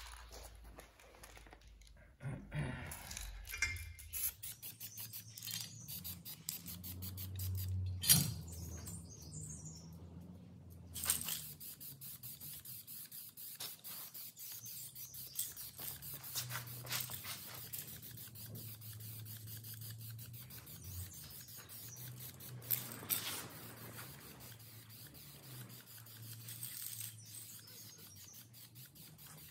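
Aerosol spray can spraying in short hisses, with many light clicks and small rattles in between; one sharper click comes about eight seconds in.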